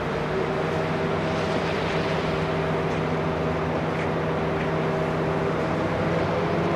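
Diesel shunting locomotive's engine running steadily under load as it hauls a freight train slowly towards the listener: a steady drone with a few held pitches, growing slightly louder as it approaches.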